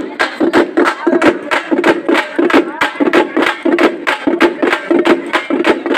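Loud music with a fast, even beat of sharp drum strikes, several a second, over a steady din, with voices.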